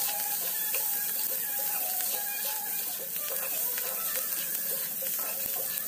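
Chopped onions and green chillies sizzling in hot oil in a kadhai: a steady hiss with small crackles as they are stirred. Light background music plays underneath.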